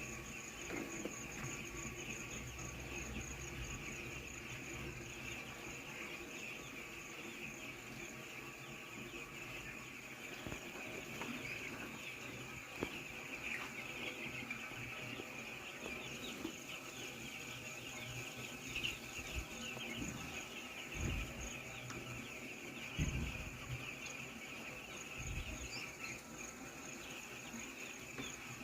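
A large flock of seven-day-old chicks peeping together in a dense, continuous chorus of high chirps. A few dull low thumps come in the last third.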